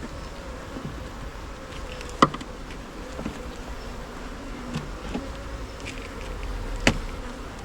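Honey bees buzzing around an open hive, a steady hum with passing bees' tones wavering. Two sharp knocks sound over it, about two seconds in and again near the end.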